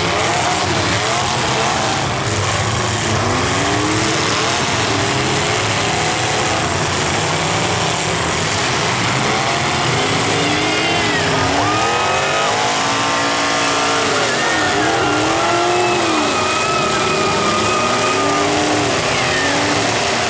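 Several stock full-size demolition derby cars' engines revving hard again and again, their pitches rising and falling over one another, over a steady dense noise of the running cars.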